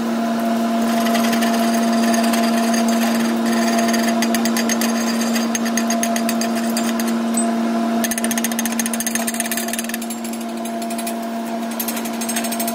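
A steel wire brush scrubbing slag and scale off a fresh manual arc weld bead on steel plate, a fast, rough scratching of many quick strokes that pauses briefly about ten seconds in, cleaning the bead after chipping. Under it runs a steady electrical hum.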